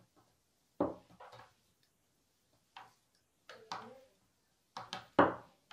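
Thick 3 mm wire being bent and wound by hand into a spring coil, giving a series of separate sharp clicks and knocks a second or so apart, the loudest near the end.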